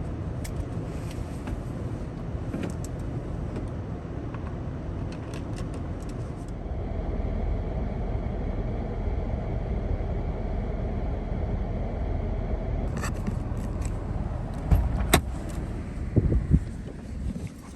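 Daihatsu Taft driving on a snowy road, heard from inside the cabin: a steady low rumble from the road and engine, with scattered sharp clicks and rattles, and a few louder thumps near the end.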